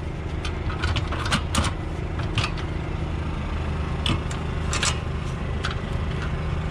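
Light metal clinks and scrapes as a stainless air cleaner canister top is worked down onto its housing and its clamp flange is lined up, about eight sharp clicks scattered through, over the steady low hum of an engine idling.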